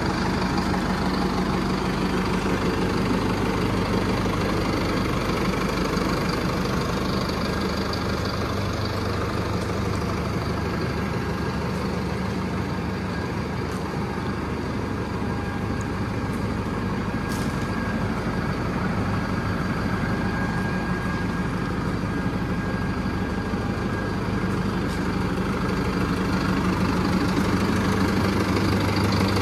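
Massey Ferguson 5712 tractor's four-cylinder diesel engine idling steadily.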